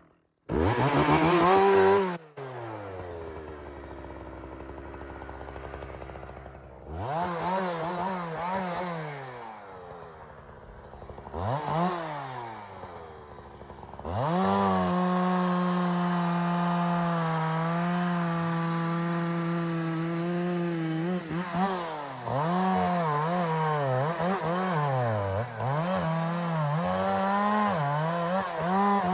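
Two-stroke chainsaw starting about half a second in and revved in a few short blips, dropping back toward idle between them. From about halfway it runs steadily at high speed, with the engine speed dipping and recovering several times near the end.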